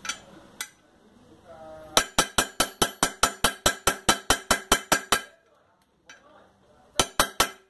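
A light hammer tapping on a socket used as a drift, driving a ball bearing into an aluminium motorcycle crankcase: a quick run of sharp metallic taps, about five a second, for about three seconds, then a pause and four more taps near the end. The bearing is being driven home, and a change in the sound of the blow tells when it has bottomed in its seat.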